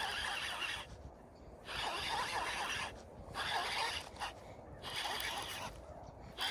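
Fishing reel being cranked in about four bursts of a second or so, with short pauses between, as a hooked bass is reeled in.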